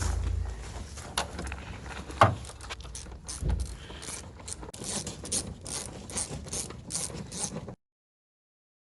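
Ratchet wrench clicking in short back-and-forth strokes as bolts are run in, at about two to three clicks a second in the second half; the sound cuts off suddenly near the end.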